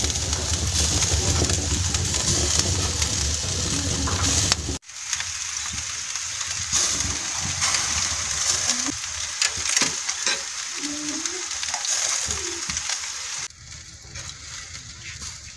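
Rib-eye steaks sizzling and crackling on a grill grate over hot coals. The sound changes abruptly about five seconds in, losing its low rumble, and turns quieter near the end.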